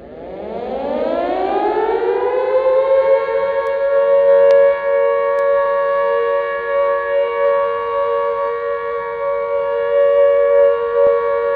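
Air-raid siren winding up, its pitch rising over the first two seconds or so, then holding one steady note.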